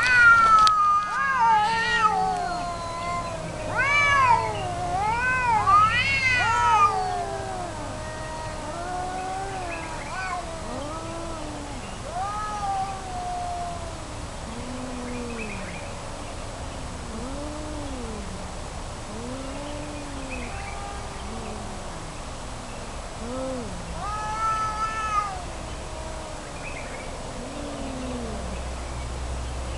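Two cats yowling at each other in a fight standoff: long, wavering caterwauls, loudest in the first seven seconds, then lower, shorter yowls about every two seconds, with one louder call near the end. This is threat yowling between rival cats before a fight.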